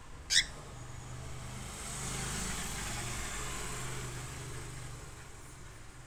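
A cockatiel gives one short, sharp chirp. Then a rush of noise swells and fades over about four seconds, over a low hum.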